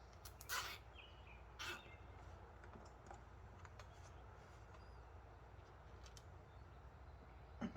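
Mostly quiet work sounds of a wiring harness being put together: two short rasps about half a second and a second and a half in, a few faint ticks, and a soft knock near the end, as wires and cable ties are handled.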